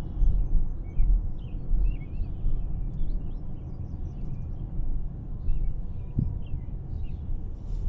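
Low, uneven rumble of a Toyota RAV4 Hybrid rolling along at low speed, with birds chirping repeatedly over it.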